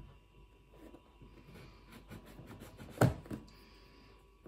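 Scissor blade scraping and picking at the tape seal of a cardboard box, the blade too blunt to cut through easily. One sharp knock comes about three seconds in.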